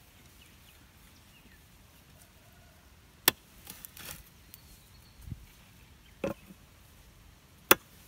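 A cleaver chopping a small dead bird on a wooden block: two sharp chops about four seconds apart, with a few softer knocks between.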